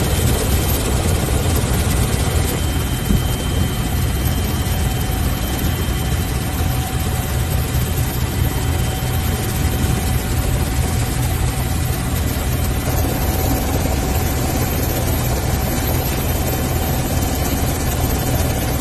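Helicopter in flight: a steady low rotor throb with a constant whine above it.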